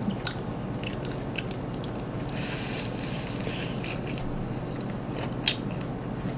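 A person biting and chewing a fried chicken drumstick close to the microphone, with small wet clicks throughout. There is a brief crackly crunch a little over two seconds in and a sharp click about five and a half seconds in.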